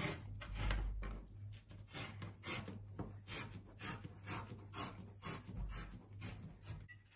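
BFK Rives printmaking paper being torn along a steel straightedge, in a run of short tearing strokes, two or three a second.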